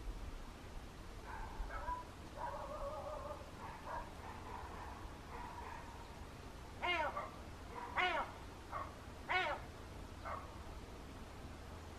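An animal calling: a run of about five short, loud cries in the second half, each rising then falling in pitch, after fainter, steadier calls in the first half.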